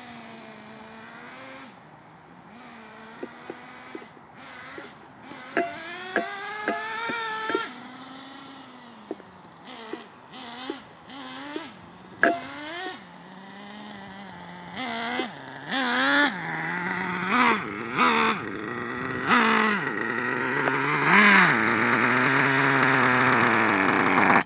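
Traxxas T-Maxx nitro RC truck's small glow engine revving up and down as the truck is driven, with scattered short clicks. Near the end it runs louder and steadier at a high pitch.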